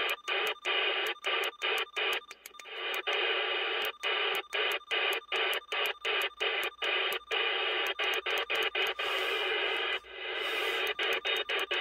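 President McKinley CB radio's speaker hissing with receiver static in sideband mode, cut by short drop-outs about three to four times a second as the channels are stepped through. About ten seconds in the hiss dips briefly and swells back as the mode is switched from USB to LSB.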